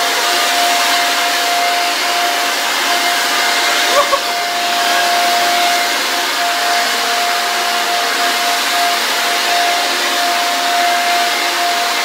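Electric air blower running at full speed: a steady high motor whine over a loud rush of blowing air. A brief knock about four seconds in.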